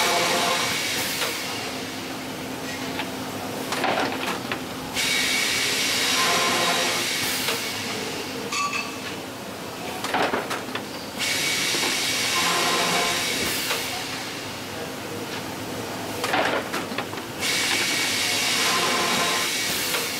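Six-head boring machine working wooden panels in repeated cycles: a high, hissing whine that starts abruptly and runs for a few seconds, about every six seconds, with short knocks between the bursts over a steady low machine hum.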